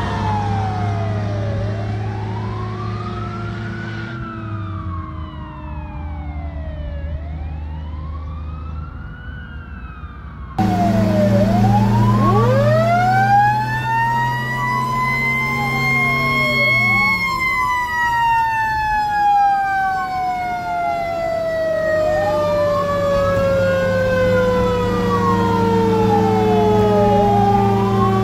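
1968 Seagrave FWD fire truck's sirens wailing as the truck drives away, pitch and loudness sinking as it recedes. About ten seconds in, the sound jumps louder, as heard from inside the cab. There one siren wails up and down every few seconds while a second siren tone rises for several seconds and then slowly falls, over the steady run of the truck's 500 cubic inch International straight-six gas engine.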